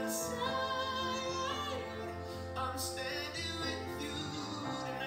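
A man singing with guitar accompaniment, holding long notes with vibrato and starting a new phrase about halfway through, heard through a television's speakers.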